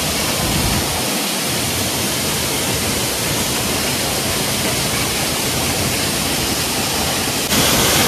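Waterfall plunging into a rock pool: a steady, dense rush of falling water, a little louder near the end.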